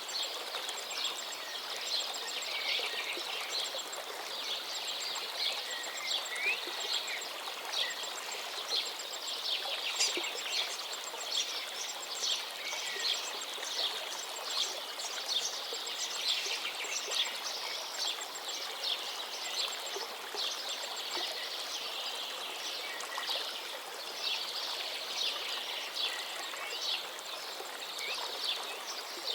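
A chorus of songbirds singing and chirping, many overlapping calls and trills, over the steady rush of a flowing forest river.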